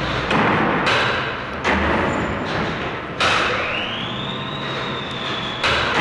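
Heavy electric machinery recorded for a sound-effects record. Five loud clunks come at irregular intervals over a steady low hum, and after one of them a motor whine rises in pitch and then holds steady.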